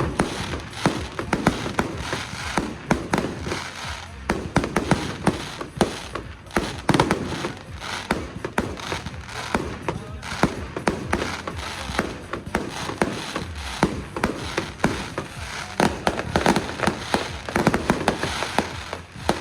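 Fireworks going off in a rapid, continuous barrage of bangs and crackles, many reports a second.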